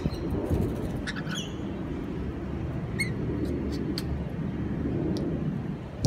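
Rainbow lorikeets feeding from a hand, giving a few brief, high chirps and small clicks over a steady low rumble.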